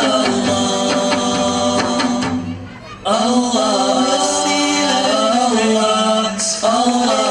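Song music with held melodic notes, which may be wordless singing or instruments. It drops away briefly about two and a half seconds in, then comes back.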